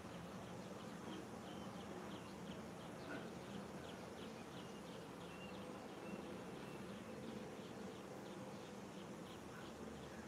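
Faint outdoor ambience: a steady low hum with rapid, short, high chirps repeating a few times a second.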